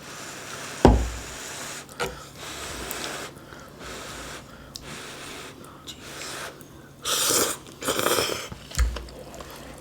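People eating hot noodle stew: breathy slurping of noodles and chewing. A dull thump comes about a second in and another near the end, and the loudest slurping is a long stretch shortly before the second thump.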